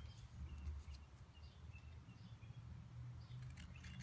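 Quiet room tone: a low steady hum with a few faint, short high chirps scattered through it.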